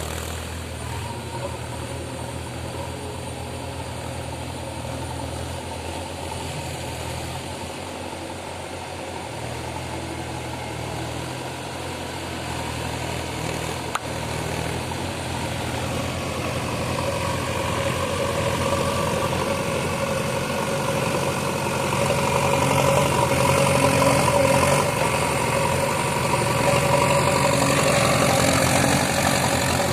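Diesel engine of a JCB excavator or backhoe loader running steadily. It grows louder and fuller from about halfway through.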